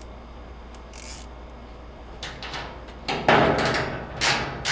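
A 3/16-inch ratchet tightening the ground screw of a washer lid switch into the sheet-metal cabinet: a few short ratcheting strokes, coming mostly in the last second and a half.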